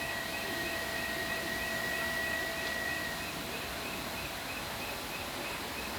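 Outdoor evening ambience: a steady hiss under a regular high chirp, nearly three times a second, with a thin held whistle tone that stops about halfway through.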